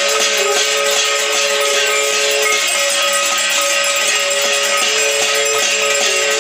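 Many people beating steel plates (thalis) with spoons together, a dense, continuous metallic clatter with a few steady ringing tones held over it.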